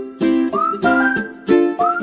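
Background music: strummed chords struck on a regular beat, with a melody whose notes slide up into pitch.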